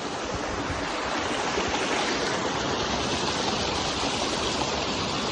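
Steady rushing of flowing water, an even noise that does not break or change.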